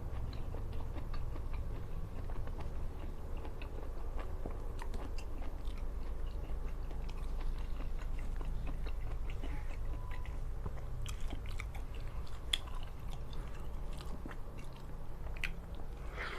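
A person chewing and biting food close to the microphone, with many small crunches and wet clicks of the mouth, over a steady low hum.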